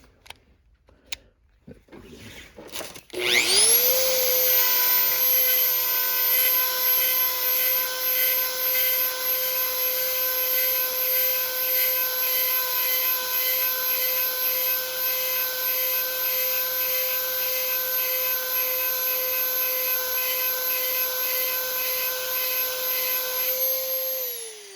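A few clicks, then about three seconds in a Dremel rotary tool spins up to a steady high whine, its 7/32-inch sharpening stone grinding a chainsaw chain tooth. Near the end it is switched off and winds down, falling in pitch.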